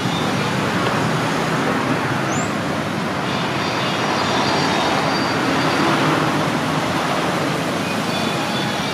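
Steady road traffic noise: vehicle engines and road rumble in an even wash, with no single event standing out.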